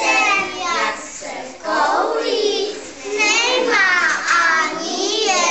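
A group of young children singing together, an action song sung in short phrases.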